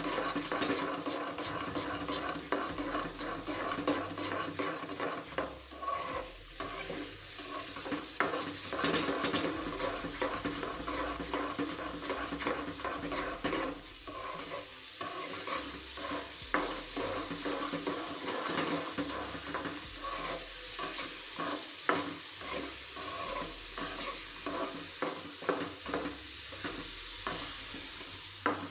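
Metal spatula stirring and scraping a thick semolina, ghee, milk and sugar mixture around a metal kadai, with frequent short scrapes against the pan over a steady sizzle from the cooking mixture. The rava pak mixture is being cooked down until it is thick enough to spread and set.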